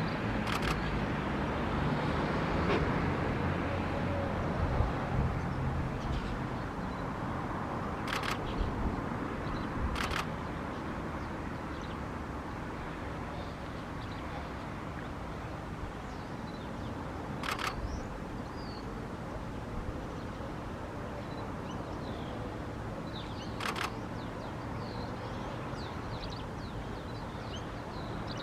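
Steady outdoor background noise with a low hum. Five sharp clicks come at uneven intervals, and faint chirps are heard in the second half.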